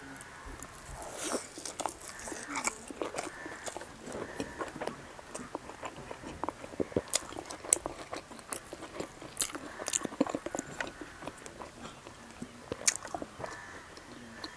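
Close-up chewing of a hand-held piece of egg omelette, with irregular wet mouth clicks and smacks.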